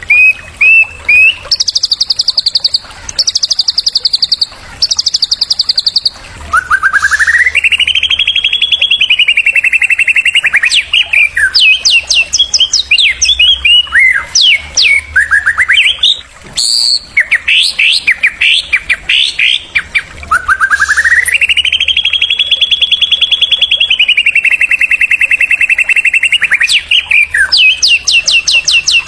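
White-rumped shama song: a set of short, high buzzy trills, then two long, rapid rattling trills that rise in pitch and hold, with fast sweeping whistled notes between them and a quicker high trill near the end.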